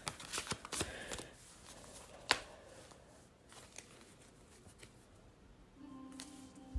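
Tarot cards being handled on a table: soft rustles and clicks in the first couple of seconds, with one sharp snap about two seconds in. A steady low tone comes in near the end.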